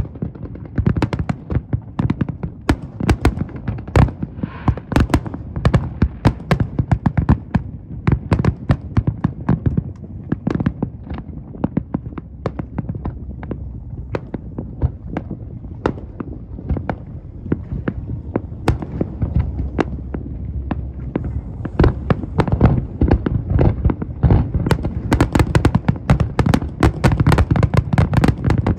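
Large fireworks display: many shells bursting in rapid, overlapping bangs over a low rumble. It grows denser and louder in the last several seconds.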